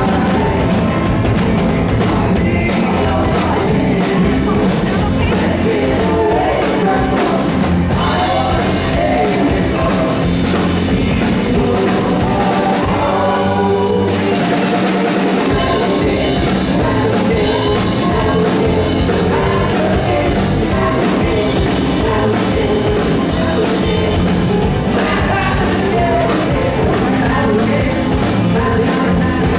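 Live rock band playing loudly, with electric guitar, bass guitar, keyboard and drums under a singing voice. The bass and drums drop out briefly about halfway through.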